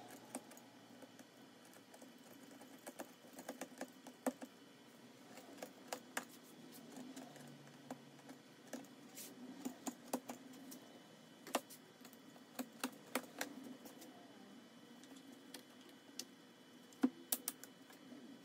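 Utility knife cutting through the small holding tabs in a sheet of 1/4-inch MDF: faint, irregular sharp clicks and snaps, some in quick little clusters, with quiet stretches between.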